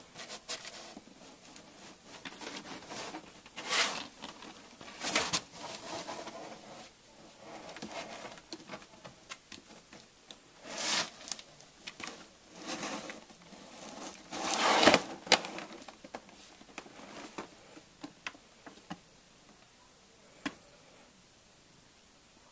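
Cardboard boxes crinkling, scraping and knocking as a cat climbs over and into them, in irregular bursts; the loudest scrapes come about fifteen seconds in, with one sharp click near the end.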